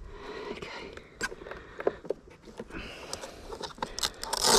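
Scattered clicks, taps and rustling from hands handling an RC race boat's hull, hatch and wiring, with a louder rustle near the end.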